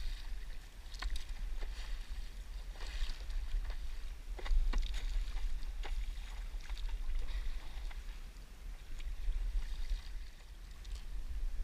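Stand-up paddleboard moving through calm sea: irregular small splashes and slaps of water at the board's nose and paddle, over a steady low rumble.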